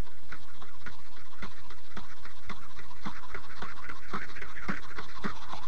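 A run of short, irregular clicks, a few a second, over a steady low hum.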